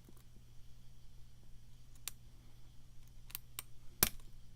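Scattered light metallic clicks of a lock pick lifting pin 2 in a pin-tumbler challenge lock, about five clicks with the loudest about four seconds in, over a faint steady low hum.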